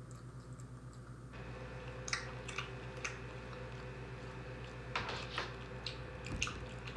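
Quiet chewing of a buffalo jerky stick, with scattered small clicks and a couple of louder crinkles about five seconds in, over a steady low hum.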